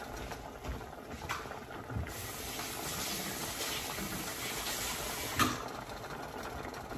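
Soup boiling in a glass pot on an electric coil stove: a steady bubbling hiss, louder for a few seconds in the middle, with a couple of light clicks.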